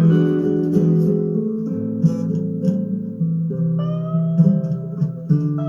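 Guitar music: picked chords ringing on, with a held melody note coming in over them about three and a half seconds in.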